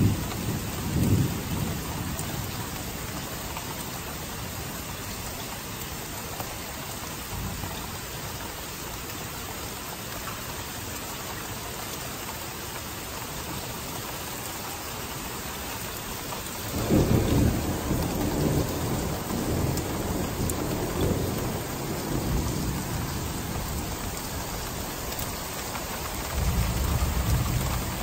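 Steady rain with rolling thunder. A rumble dies away in the first couple of seconds; a little past halfway a loud rumble breaks in suddenly and rolls on for several seconds, and another rumble builds near the end.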